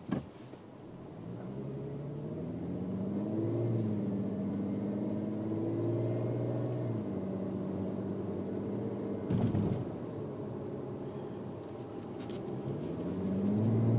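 Car engine heard from inside the cabin, pulling away with its pitch rising, holding steady, easing off, then speeding up again near the end. A short knock about nine and a half seconds in.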